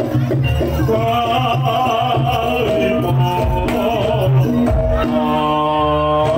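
Jaranan (kuda lumping) music playing loudly and continuously, with a wavering melody line over percussion and held notes near the end.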